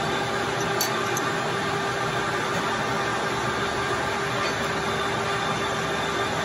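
Steady hum of running machinery in a machine shop, with a couple of light clicks about a second in.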